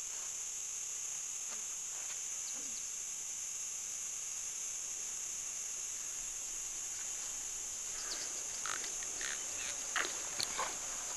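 Steady high-pitched insect drone. In the last few seconds come several short wet slurps as a man sucks water from a small hole dug in the sand.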